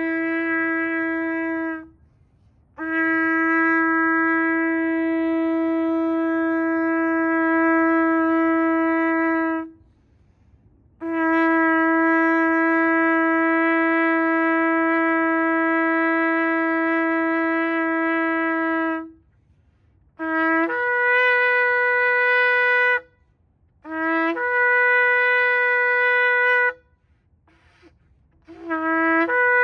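Ram's-horn shofar being blown: a blast ends near the start, then two long steady blasts of about seven seconds each on one low note, followed by several shorter blasts that begin on the low note and jump up to a higher note.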